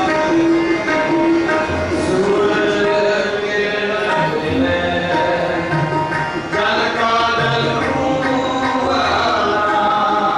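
Sikh kirtan: a harmonium holding chords and a tabla keeping a steady beat, with men's voices singing the hymn, most clearly in the second half.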